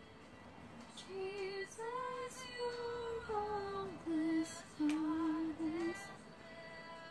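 Music with a woman singing, held notes that slide from one pitch to the next, starting about a second in.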